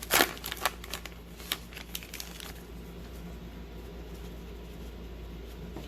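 Crinkling of a baseball card pack wrapper and a stack of cards being handled, as a quick run of crackles and clicks for about two and a half seconds. After that only a steady low hum.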